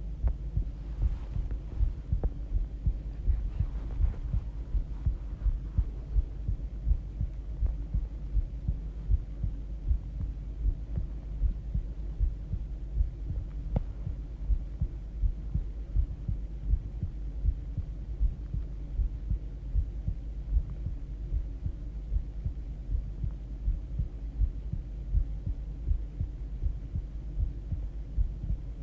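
A person's heartbeat: a steady run of soft, low thumps at an even pace over a constant low hum.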